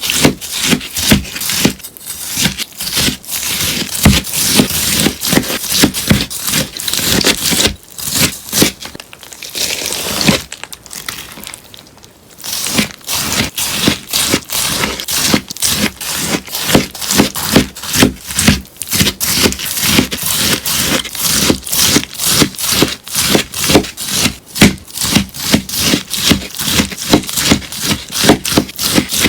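Melamine sponge being cut, a quick series of crisp, crunchy cuts about two or three a second, with a quieter, sparser stretch around a third of the way through.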